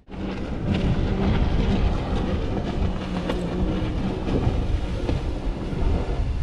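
A jet ski's engine droning steadily out on the water as it turns, under heavy wind buffeting on the microphone.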